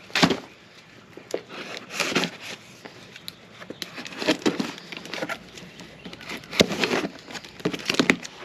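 Metal parts being handled: irregular knocks, clinks and short scraping clatter as a winch fairlead is taken out of a steel winch box.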